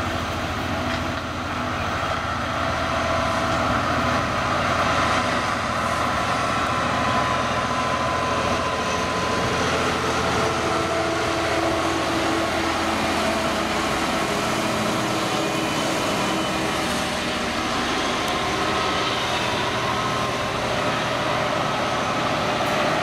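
British Rail Class 66 diesel-electric locomotive, its EMD two-stroke V12 engine working under power as it passes. The engine note fades about halfway through, leaving the steady running of loaded freight wagons' wheels on the rails.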